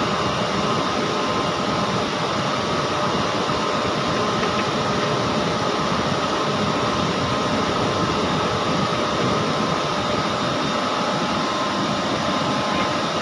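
TIG welding arc on SS310 stainless steel hissing steadily, with a faint steady tone in it.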